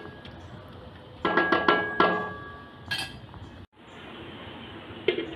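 A glass pot lid clinking against the rim of a metal cooking pot as it is put on. A quick cluster of ringing clinks comes about a second in, and one more sharp clink near the three-second mark.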